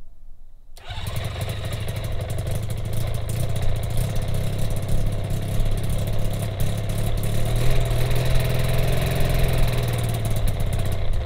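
Rotax 582 two-stroke twin engine of a newly built gyrocopter catching about a second in on its first start, then running steadily with a rapid firing buzz.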